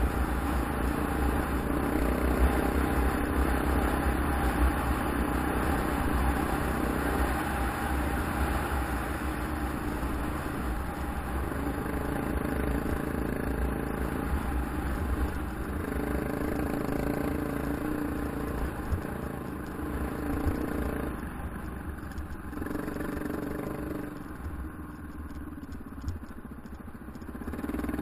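Single-cylinder engine of a KTM 690 enduro motorcycle running steadily while riding, easing off briefly near the end before picking up again.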